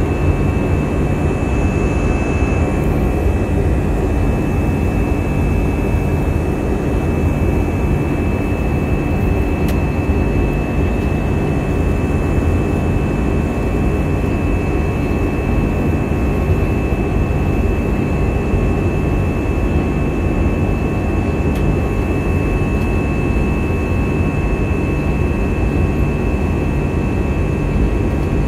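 Airliner cabin noise in flight: a steady rush of engine and airflow with a thin, steady high whine over it.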